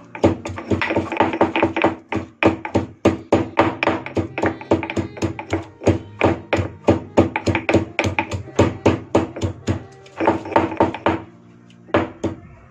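Stone pestle pounding garlic cloves and cumin seeds in a stone mortar into a coarse paste. The knocks come steadily, about three to four a second, then stop shortly before the end with two last strokes.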